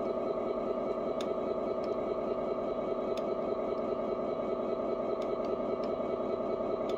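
Scale RC truck's sound module playing a simulated diesel engine idling steadily through its speaker, with a few faint clicks.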